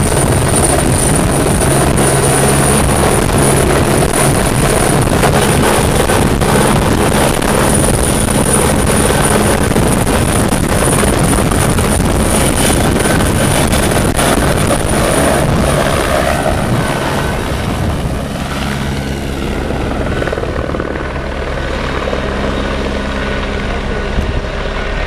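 Helicopter turbine and main rotor running at high power as it lifts off from the pad, with a steady high turbine whine over dense rotor noise. About two-thirds of the way through the sound drops somewhat and the whine fades as the helicopter moves away.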